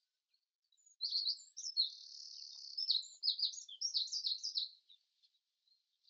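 A songbird singing one high song phrase of about four seconds: quick notes, a buzzy stretch, then a fast run of chirping notes. Faint distant bird calls before and after it.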